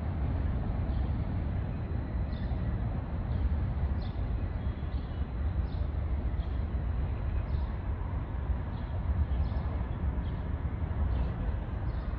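Steady outdoor city background noise, led by a low rumble, with faint short high chirps every second or so.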